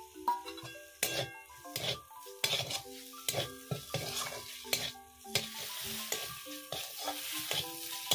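A steel spatula scraping and knocking against an aluminium karai in repeated strokes as mashed fish, onion and spices are stir-fried in mustard oil, with a light sizzle underneath. This is the fish filling for kofta being fried.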